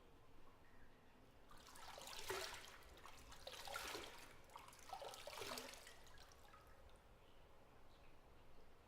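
Bathwater splashing and sloshing in a bathtub, in three short swells with dripping between them.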